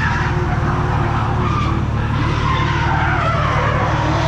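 Ford Falcon drift car sliding: the engine runs hard under throttle while the tyres squeal in long, wavering tones that rise and fall.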